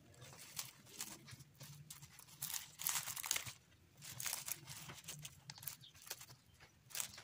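Plastic cling film crinkling and rustling as it is stretched and pressed down around the rim of a plate, in irregular bursts, loudest a little before and just after halfway.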